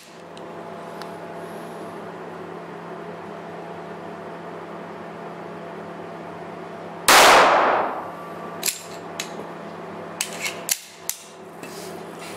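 A single shot from a Korth PRS .45 ACP pistol about seven seconds in, its echo dying away over about a second in the tunnel range. Several short sharp clicks follow as the pistol is handled.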